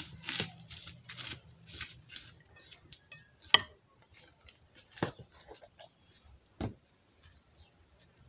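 Serving spoon scooping cooked rice and dropping it onto a plate: a run of soft scrapes, then a few sharp knocks of the spoon against the dish.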